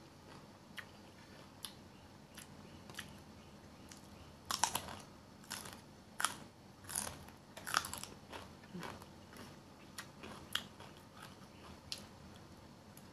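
Close-up crunching and chewing of crisp raw green sweet pepper: a few sharp clicks, then a run of loud crunches in the middle, tapering to softer chewing clicks near the end.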